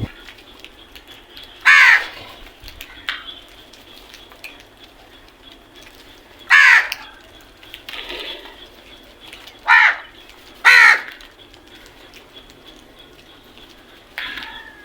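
A crow cawing: four loud, separate caws spaced a few seconds apart, with a couple of fainter calls between and near the end.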